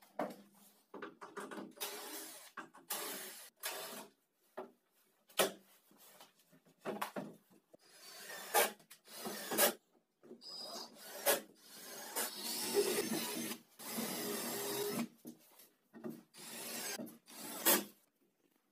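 A cordless drill driving screws into a plywood cabinet panel, in short irregular spurts, along with scraping and rubbing of wood between them.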